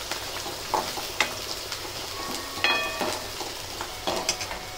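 Chopped onion sizzling as it sautés in hot oil in a kadhai, with a steel spoon scraping and clicking against the pan as it is stirred. One knock about two and a half seconds in rings briefly like metal.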